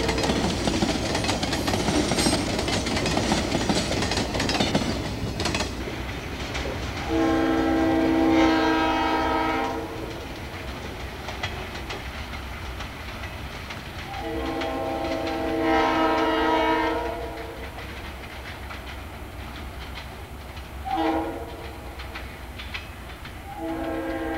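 Freight cars rolling past with wheel clatter for the first five seconds or so. Then a diesel locomotive's air horn sounds the grade-crossing signal: two long blasts, a short one, and a long one that is still sounding at the end.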